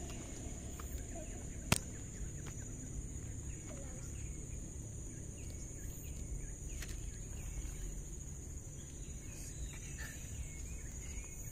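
Outdoor ambience: a steady high-pitched drone with a few faint bird calls over a low background rumble. A single sharp click comes a little under two seconds in.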